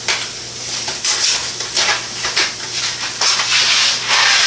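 A cardboard box of dry pasta being handled and opened, with irregular rustling and rattling, and a steadier rush of noise about four seconds in.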